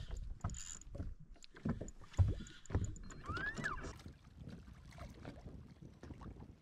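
Irregular knocks and thumps from handling in a fishing boat, over a low lapping and rumbling haze, with a brief chirp that rises and falls a little after three seconds in.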